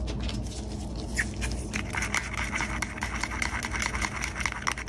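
Primer and thinners being stirred in a small glass cup: from about two seconds in, a rapid run of scraping clicks of the stirring rod against the glass, over a steady low background rumble.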